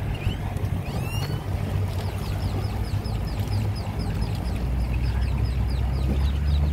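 Boat motor running low and steady, with a bird calling over it from about two seconds in: a rapid series of short, falling high notes, about five a second, lasting some three seconds.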